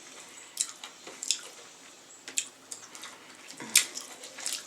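Wet eating sounds of someone chewing and picking at sauce-covered crab legs: scattered short smacks and clicks, the loudest a little under four seconds in.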